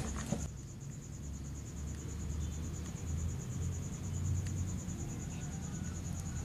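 A cricket chirping in a steady, rapid, high-pitched trill, over a low rumble.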